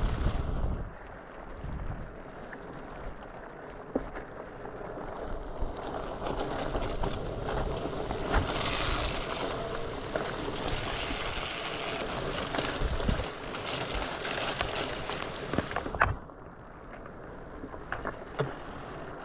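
Fat bike riding through a runoff-swollen canyon creek: rushing, splashing water swells in the middle and cuts off sharply about sixteen seconds in. Wind buffets the microphone, and scattered knocks come from the bike over rocks.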